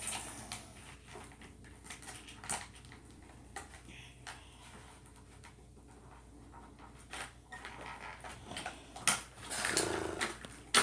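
Light clicks and rustling of plastic toy packaging and the doll being handled, with a short burst of louder rustling and a brief pitched sound near the end.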